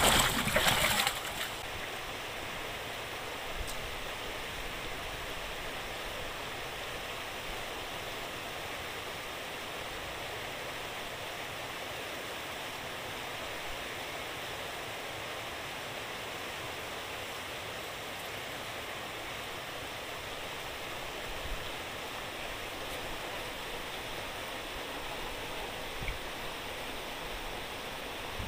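Steady rushing of water pouring out of a fish-pond sluice gate into the estuary, with a brief louder burst of noise at the very start.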